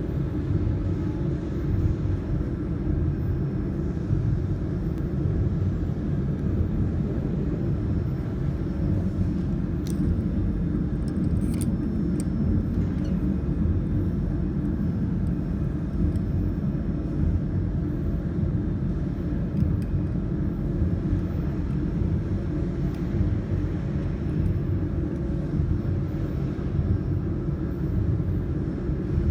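Steady low mechanical rumble, with a few sharp clicks about ten and twelve seconds in.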